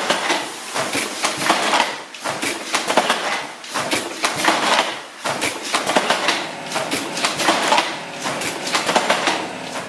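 Wooden floor handloom weaving: a dense wooden clatter of sharp knocks from the shuttle, beater and treadles, swelling and easing in a steady cycle about every second and a half.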